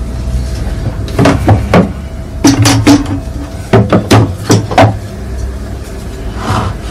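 Plastic bucket and cyclone of a homemade cyclone dust collector knocking and clunking against each other and the wooden workbench as they are lifted and turned, in three quick clusters of hollow knocks.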